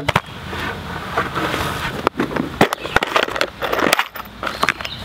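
Weathered wooden boards being handled and set against each other, with scraping and several sharp knocks and clicks.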